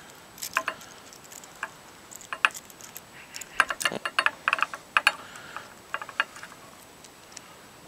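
Metal hose clamp clicking and clinking as it is handled and fitted with a rubber liner, a string of irregular light clicks that thin out near the end.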